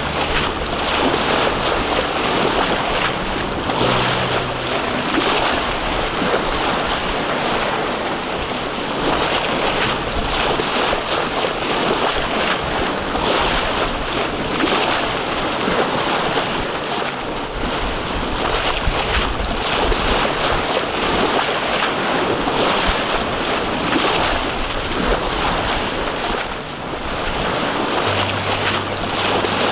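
Sea water rushing and splashing along the hull of a sailboat under way, with wind buffeting the microphone. The noise is steady and full, with louder surges every few seconds as waves pass the hull.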